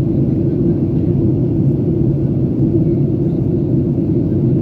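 Steady low rumble of a jet airliner in flight, heard from inside the passenger cabin: engine and airflow noise.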